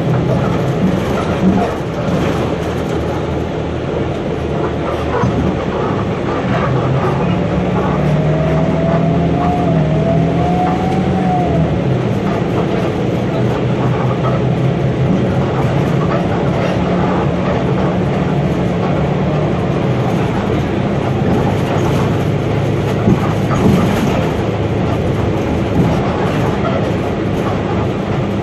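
Higer KLQ6930G city bus heard from inside while driving: steady engine hum and road noise with cabin rattles. About eight seconds in the engine note rises and wavers for a few seconds, and a couple of small knocks come near the end.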